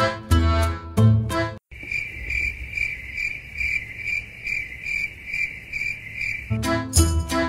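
Background music stops abruptly about a second and a half in. A cricket-like chirping follows, a steady high tone pulsing two or three times a second for about five seconds, and the music comes back in near the end.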